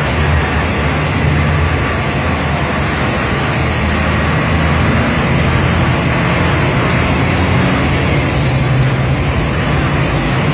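KSRTC bus under way, heard from inside: the diesel engine's steady low hum under continuous road and rattle noise.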